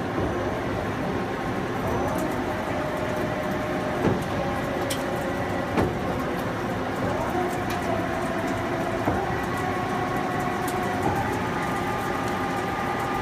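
Cincinnati Milacron Cinturn CNC lathe running through a cycle: a steady mechanical running noise with a motor whine that rises in pitch twice, and a few sharp clicks.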